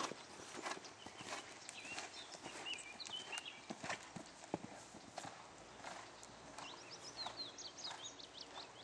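Horse's hooves beating on the sand arena at a canter, a run of soft, muffled thuds.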